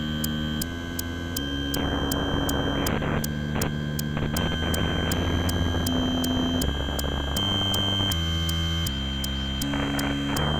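Noisy improvised synthesizer music: low synth notes stepping in pitch every second or so under a held high whine and a hiss, with a steady clicking pulse of about three ticks a second.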